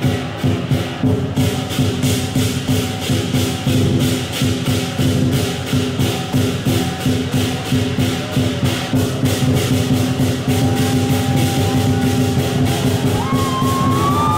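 Lion dance percussion of drum, cymbals and gong beating a fast, steady rhythm to accompany the lion on the poles. Near the end, shouts from the crowd rise over it.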